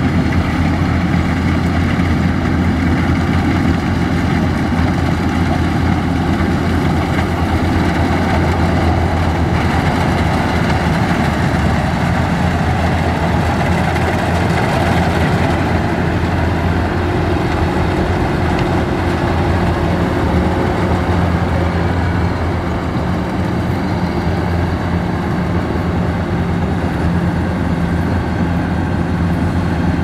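Kubota DC-105X tracked combine harvester running steadily while cutting rice, a loud, even engine hum that eases slightly as the machine moves off.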